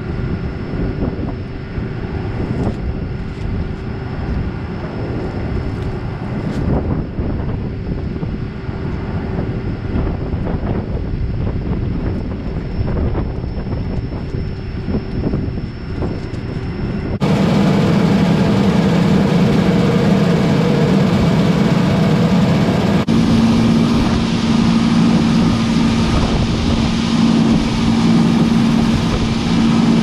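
Combine harvester running with a steady machine drone. About seventeen seconds in it cuts abruptly to a louder, fuller sound with a strong steady low hum.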